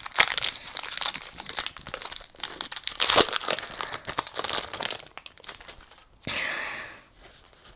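Foil Pokémon booster-pack wrapper crinkling and tearing as it is pulled open and handled, in irregular crackles.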